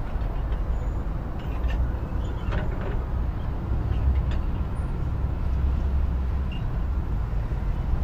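Street traffic ambience: a steady low rumble of passing road vehicles, with a few faint clicks and knocks about two to three seconds in.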